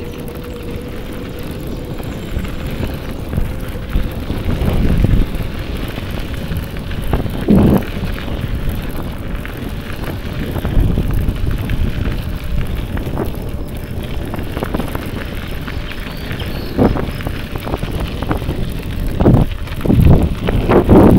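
Wind buffeting the microphone as a steady low rumble, with scattered short knocks and bumps that grow busier near the end.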